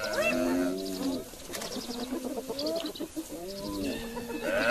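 Young Cape buffalo calf bawling in distress, three or four wavering, arching cries in a row, as it is attacked by hyenas.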